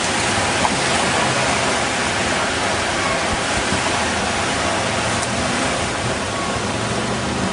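Ocean surf breaking on the beach: a steady, loud rush of water without pause.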